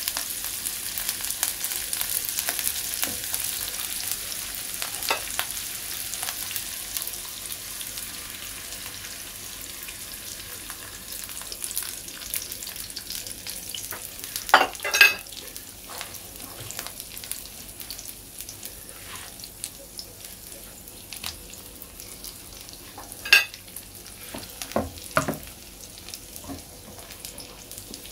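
Chopped onions sizzling in hot oil in a nonstick frying pan as they are stirred with a plastic spatula. The sizzle is strongest for the first several seconds, then softens as beaten egg cooks over the onions. A few sharp clacks sound about halfway through and again near the end.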